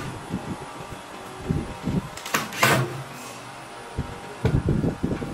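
Woodworking noises from building a cabinet: irregular knocks and bumps of wood being handled, with one short hissing burst and a thump near the middle.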